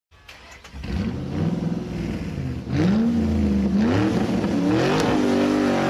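A car engine running and being revved, its pitch rising and falling several times over a steady, pulsing drone.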